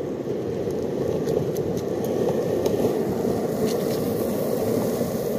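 Skateboard wheels rolling over pavement: a steady rumble with a few light clicks.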